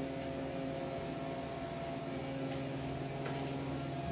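Steady low hum of a running kitchen appliance or fan, with a couple of faint light scrapes of a spatula on the bread and griddle tray about two and a half and three and a quarter seconds in.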